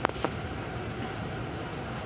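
Steady rumble of a vehicle cabin in motion, with two sharp clicks near the start, about a quarter second apart.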